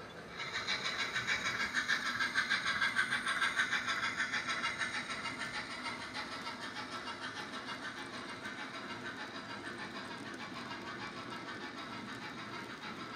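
OO gauge model steam locomotive running, an Oxford Rail Dean Goods with a DCC sound decoder: a steady rhythm of hissing steam chuffs, with its coal wagons rolling along the track. It starts suddenly about half a second in, is loudest over the next few seconds, and fades as the train pulls away.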